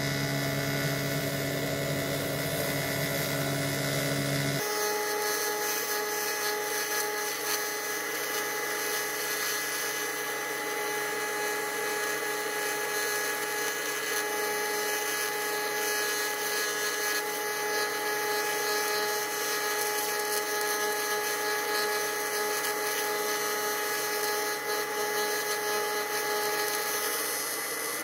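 TIG welding arc buzzing steadily as metal is laid onto an aluminium cylinder head to weld up a hole; the tone of the buzz shifts about four and a half seconds in.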